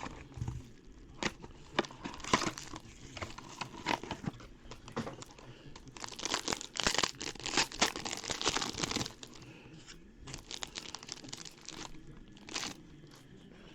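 Crinkly wrapper of a trading card pack being torn open and crumpled, a run of sharp crackles that is thickest in the middle and thins out towards the end.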